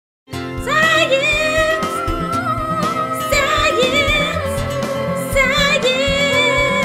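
Song with a singing voice over instrumental backing. It starts abruptly out of silence about a third of a second in, with long held, wavering notes.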